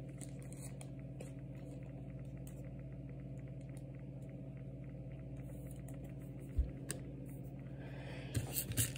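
Quiet handling of trading cards: faint soft clicks and taps over a steady low hum, with a single low thump about two-thirds of the way through and a few louder rustles near the end.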